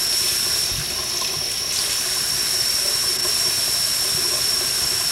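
Sink tap running steadily, a stream of water splashing onto a baby's hand and arm in the sink.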